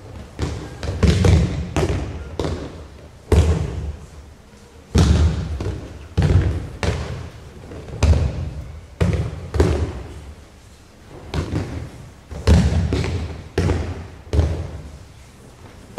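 Repeated heavy thuds of bodies hitting tatami mats as aikido partners are thrown and take breakfalls, roughly one every second, some coming in quick pairs.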